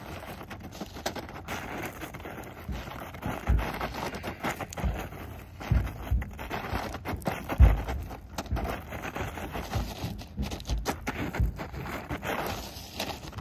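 A plastic bag dragged and shaken over gravel, crackling and scraping, a sound the handler calls a terrible noise. Several dull low thumps come between about three and eight seconds in.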